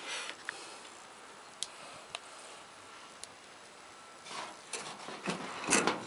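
A few sharp ticks and crackles from a wood fire burning in a stove, then, from about four seconds in, rough scraping and rustling as a wooden stick works against the stove's metal top, loudest just before the end.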